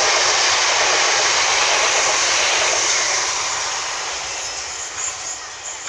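Southern Class 377 Electrostar electric multiple unit running past along the platform: a steady rushing of wheels on rails that fades away after about three seconds as the last coach clears.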